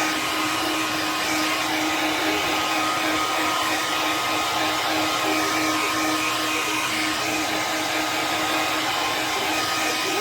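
Hair dryer blowing steadily while drying a freshly bathed dog's coat, a constant rush of air with a steady motor hum.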